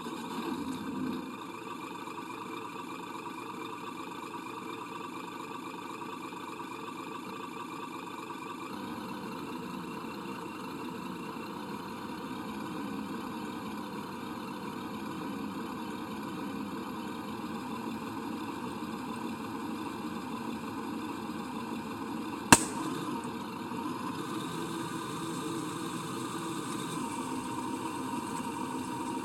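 A truck-type engine sound running steadily, with a slight change in tone about nine seconds in. A single sharp crack about 22 seconds in is the loudest sound.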